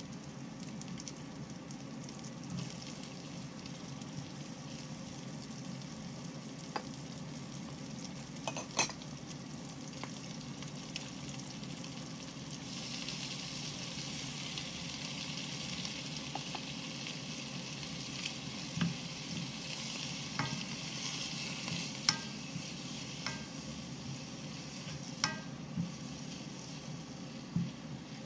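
Vegetables and egg sizzling in oil in a wok. About halfway through, the sizzle grows louder and brighter as oyster mushrooms are added. After that a wooden spatula stirs the food, with sharp knocks against the wok now and then.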